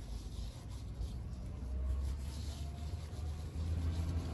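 Gloved hands rubbing a dry cure into a salmon roe skein in a paper-towel-lined dish: faint rubbing and rustling, over a steady low rumble.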